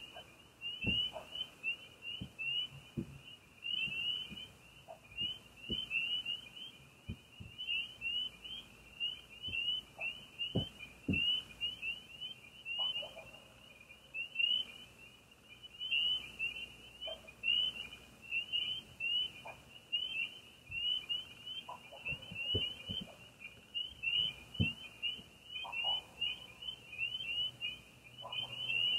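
Night chorus of frogs calling nonstop, many overlapping short, high, slightly rising peeps, with a few lower calls and soft low thumps scattered through.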